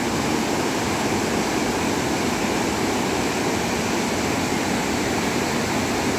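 Steady rush of floodwater pouring through the open gates of a river barrage, the river swollen after heavy rain.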